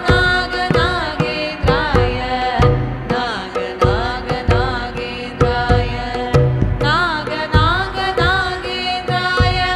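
Devotional hymn music in Carnatic style: an ornamented melody with many gliding bends over a steady drone, with frequent hand-drum strokes.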